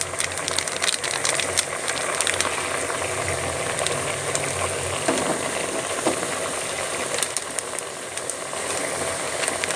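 Chicken and potato curry bubbling and sizzling in the pot as its liquid cooks down, with a steady crackle of small pops and spatters.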